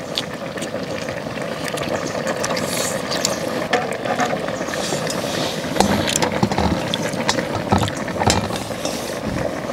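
Steady rushing hiss of a gas burner under a wide pan of simmering pork back-bone stew, with scattered clinks of tongs, chopsticks and spoons against the pan and metal bowls.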